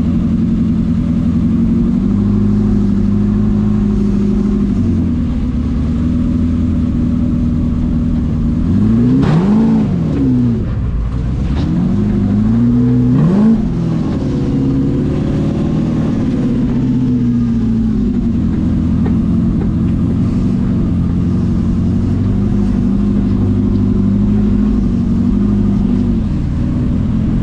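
Engine of an FJ40-based off-road trial buggy running at low revs, heard from inside its open cage. It revs hard twice, about nine and about thirteen seconds in, the pitch rising and falling quickly each time and the second rev cutting off sharply, as the buggy works through mud.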